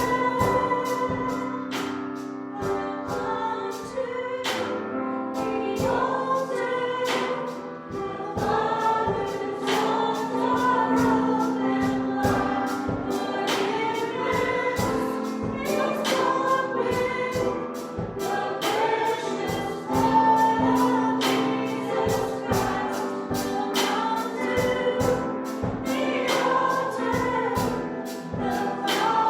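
A live church worship band playing and singing a gospel song, with voices singing together over instruments and a steady beat.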